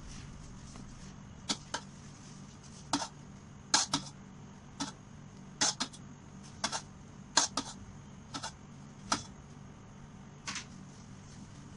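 Irregular sharp clicks and taps, more than a dozen, from a metal palette knife knocking against the cake board and cream bowl while whipped cream is smoothed over a cake. A faint steady low hum runs underneath.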